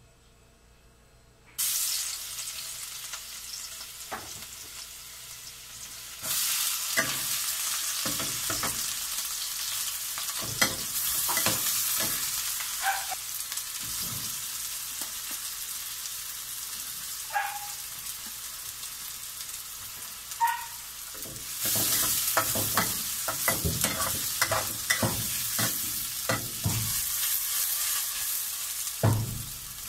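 Chopped onion and garlic sizzling in hot oil in a wok, stirred with a metal spoon that scrapes and clinks against the pan. The sizzle comes in suddenly about a second and a half in, then grows louder about six seconds in and again about twenty-two seconds in. The scraping and clinking get busier near the end.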